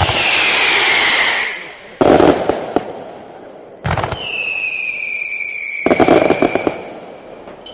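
Fireworks going off. A bang comes with a short whistle that falls in pitch. A crackling burst follows about two seconds in, then another bang about four seconds in with a long whistle that slowly falls in pitch. A further burst of crackles comes near six seconds in.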